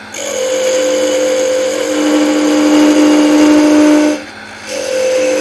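A 1/4-inch parting tool cutting into wood spinning on a lathe, giving a steady pitched whine as it parts the piece. The cut stops about four seconds in and starts again shortly after.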